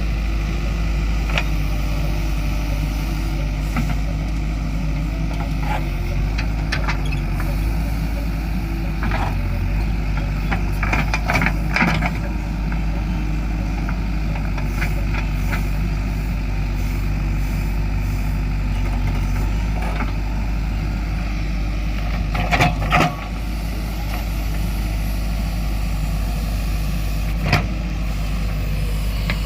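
JCB 3DX backhoe loader's diesel engine running steadily while the machine works, with several sharp knocks over it. The loudest knock comes about three-quarters of the way through.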